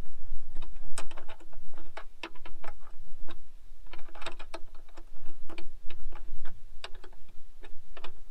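Irregular metallic clicks and taps, often in short clusters, from hand tools working on a diesel fuel-filter holder and its bolts.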